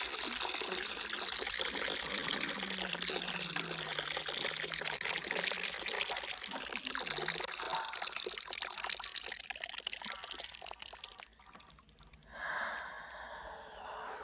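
A steady rushing, watery hiss that fades away about ten to eleven seconds in.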